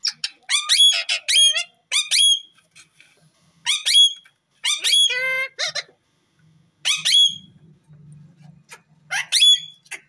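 Rose-ringed (Indian ringneck) parakeets calling in sharp, high squawks and chattering notes, in about six bursts with short pauses between them.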